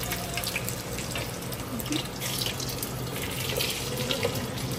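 Hot oil sizzling and crackling as blackened ingredients fry in a clay pot and are turned with metal tongs, over a steady low hum.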